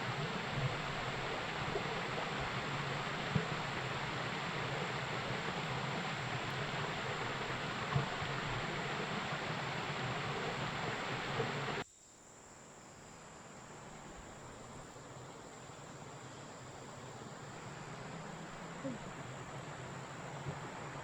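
Water rushing in a stream, a steady hiss, with a thin high insect drone above it. The rushing drops off abruptly a little past halfway, leaving a much fainter hiss that slowly grows while the insect drone carries on.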